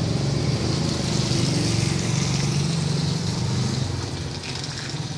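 A motor vehicle engine running steadily at low revs close by, fading away near the end.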